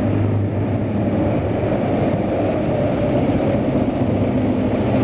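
Motorcycle engine running steadily while the bike rides along, a low even hum over a haze of road and wind noise.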